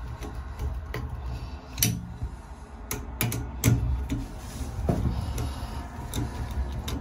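Screwdriver driving the screw that holds a chrome cross handle on a Sayco shower valve stem, with sharp metal clicks and taps at irregular intervals as the tool works against the screw and handle.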